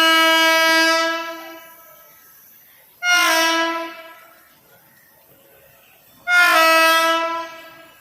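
Indian Railways express locomotive horn honking loudly in three steady blasts about three seconds apart. Each blast lasts about a second and ends in an echoing tail.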